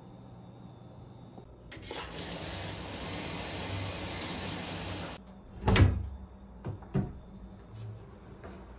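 Handheld shower head spraying water for about three and a half seconds, then cutting off abruptly. A wooden door is then opened: a loud knock, a second sharper knock about a second later, and a few light clicks.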